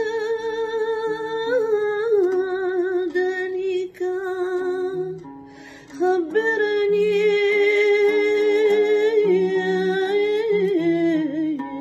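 A woman singing an unmetered Andalusian istikhbar in the mode Raml el Maya, holding long notes with vibrato and gliding between them, while an oud plucks sparse low notes beneath her voice. Her voice drops away briefly about five seconds in and comes back on a long held note.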